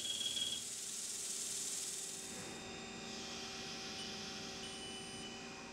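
CNC lathe running with its chuck spinning and coolant spraying while it cuts soft jaws: a steady hiss with a low hum and a few faint steady tones. The high part of the hiss thins out about halfway through.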